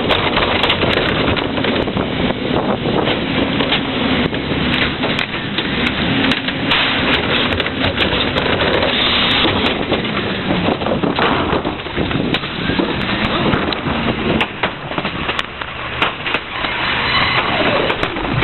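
Heil 5000 rear-loader garbage truck running at the curb while carts are tipped into its hopper: continuous truck noise with repeated knocks and clatter of the bins.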